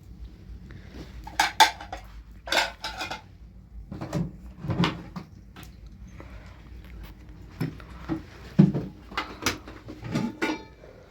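Irregular clatter and clinking of dishes, pots and utensils being handled, with scattered sharp knocks and a brief ringing clink near the end.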